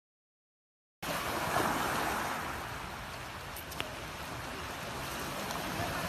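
Silence for about a second, then sea waves washing around concrete breakwater blocks, a steady rushing surf with some wind on the phone's microphone. A single short tick comes about four seconds in.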